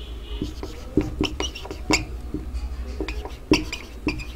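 Marker writing on a whiteboard: a run of short squeaks and taps as the strokes are drawn, over a low steady hum.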